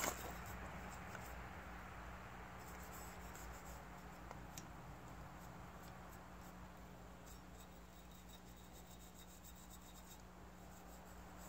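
Faint rubbing and a few small clicks of the Lynks 12 shotgun's bolt being worked out of its carrier by hand, with a sharper click right at the start, over a steady low hum.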